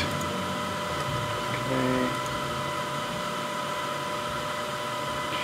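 A machine running with a steady hum and several constant whining tones.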